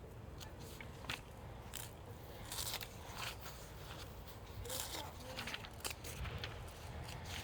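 Faint rustling and scattered light clicks of objects being handled, over a low steady background rumble.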